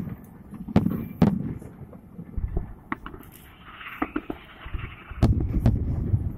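New Year's aerial fireworks shells bursting: a series of sharp bangs with rumbling low booms. A hissing stretch comes midway, and the booms pile up into a dense rumble near the end.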